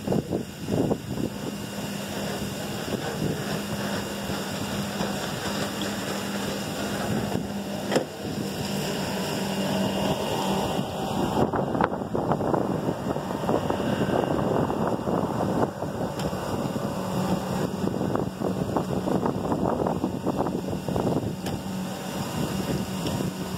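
A steady engine hum over a constant rushing noise of wind on the microphone; the hum fades in the middle and comes back.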